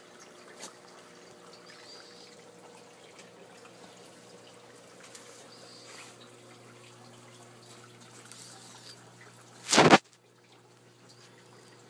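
Faint trickling and dripping of water in a koi pond's filter plumbing over a faint steady hum. About ten seconds in there is one brief, loud burst of noise, much louder than the water.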